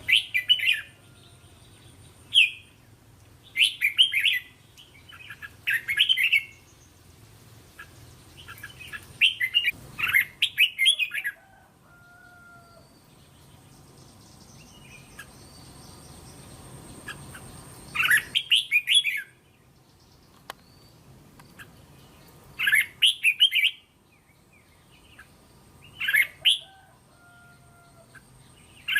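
Red-whiskered bulbul singing short, quick warbled phrases, about eight in all, with pauses of one to several seconds between them. A faint, steady high-pitched tone runs behind the song.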